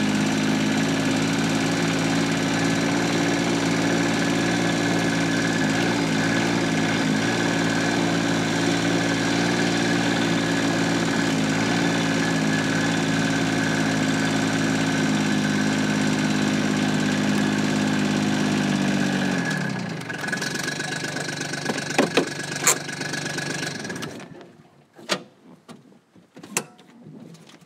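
Gator utility vehicle's engine running steadily, then switched off about 19 seconds in and winding down. A few sharp clicks and knocks follow.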